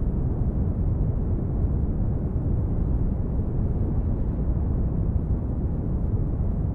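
Steady low rumbling noise, swelling up just before and then holding even, with no distinct impacts.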